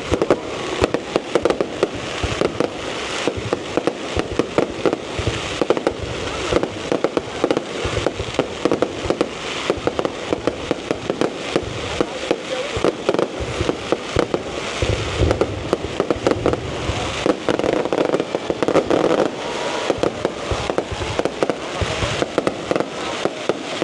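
Fireworks display going off in a continuous, rapid string of bangs and crackles, with a few heavier, deeper booms past the middle.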